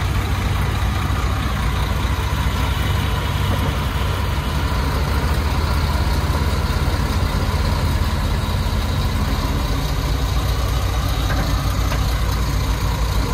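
Heavy diesel truck engine idling steadily, with a deep, even sound.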